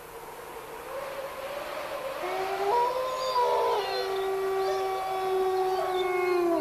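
Wolves howling: several long held howls at different pitches overlapping, coming in about two seconds in and swelling louder, over a hiss.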